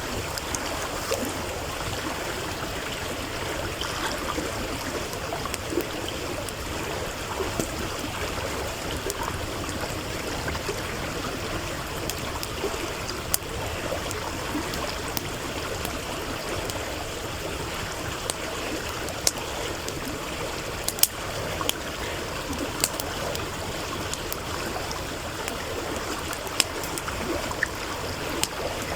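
A stream rushing steadily over its bed, with a wood campfire crackling and giving off scattered sharp pops over it.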